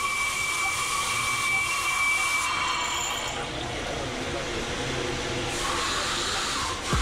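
CNC milling machine cutting a brake disc: a steady high whine over a continuous hiss of coolant spray. The whine fades out about three seconds in.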